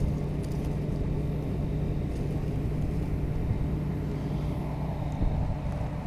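Combine engine running steadily with a constant low hum.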